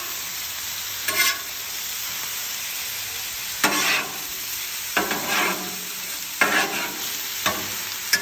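Chicken pieces sizzling steadily on a hot Blackstone steel flat-top griddle. A metal spatula scrapes and turns them across the steel surface in about six short strokes.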